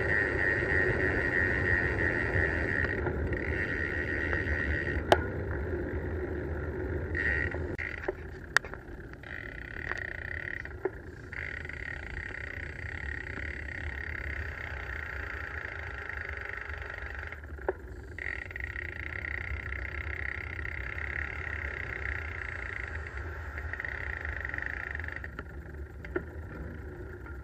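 Bicycle freewheel hub buzzing with fast ticking while the bike coasts, cutting out briefly several times as the rider pedals. Wind rumbles on the helmet or bike camera microphone, and a few sharp knocks come from road bumps.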